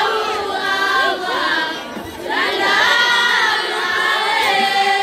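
Women's choir singing a déba, the Mahorais women's devotional chant, many voices together, with a short drop between phrases about two seconds in.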